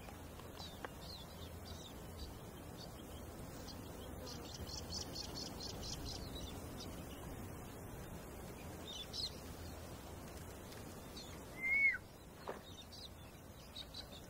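Faint wild outdoor ambience: scattered small bird chirps and insect calls, including a quick ticking trill, over a soft steady hiss. Near the end there is one louder, short whistled bird call that slurs downward.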